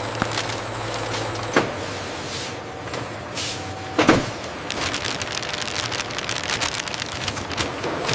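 Factory machinery running: dense rattling and clicking over a steady hum, with two louder thumps, one about a second and a half in and another about four seconds in.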